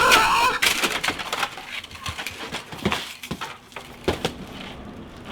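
A brief strained vocal groan, then a run of scattered knocks, thuds and rustling handling noise that thins out, as of a scuffle.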